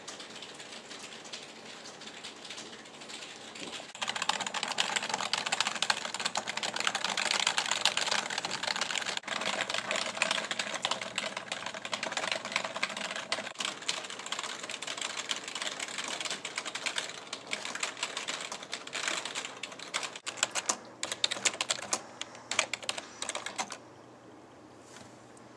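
Rapid, dense clicking that starts abruptly about four seconds in and stops suddenly near the end, over a fainter steady background.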